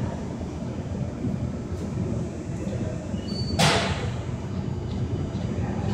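Steady low workshop background rumble, with one brief sharp noise about three and a half seconds in.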